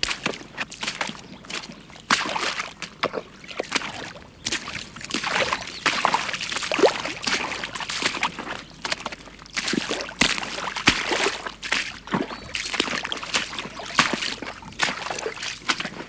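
Recording of a man wading through floodwater: his legs slosh and splash through the water step after step in an irregular run.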